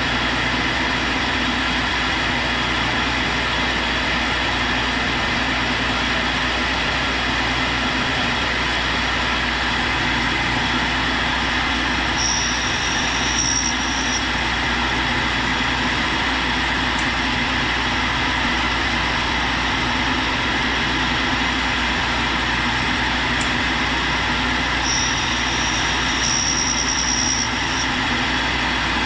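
Tool and cutter grinder running steadily while grinding the cutting end of a high-speed steel roughing end mill, with the air spindle of the fixture hissing. A high-pitched tone comes in twice, each time for about two seconds, around the middle and near the end.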